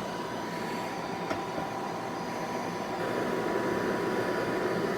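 Heat gun running with its fan on a higher speed and the heat set low, a steady rush of air with a thin steady whine, growing louder about three seconds in.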